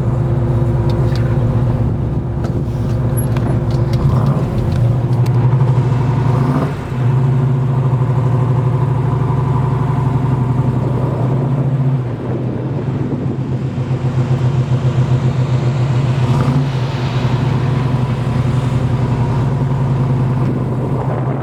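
1967 Chevelle's 396 big-block V8 running under way, its pulsing note coming through headers and Flowmaster dual exhausts. The note steadies, then breaks briefly a few times; the clearest dip comes about seven seconds in.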